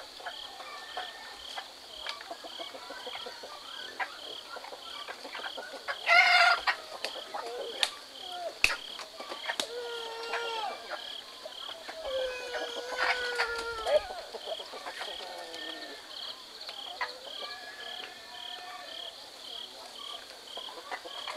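Domestic chickens clucking, with one short loud call about six seconds in and more calls a few seconds later, over evenly pulsing insect chirps. There are a few sharp knocks.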